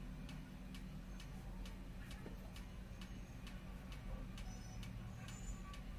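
Steady, evenly spaced ticking, a little over two ticks a second, over a low background hum.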